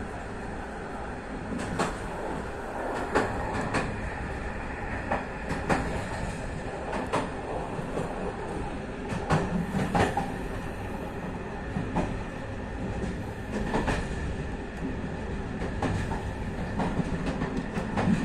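BDs450 passenger coach running along a branch-line track: a steady rumble of wheels on rail, broken by irregular clacks and knocks over rail joints every second or two.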